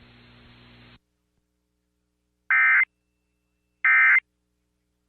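Emergency Alert System end-of-message data bursts: two short, identical bursts of digital data tones about 1.4 s apart, after a second of faint hiss and then dead silence. They signal that the alert message has ended.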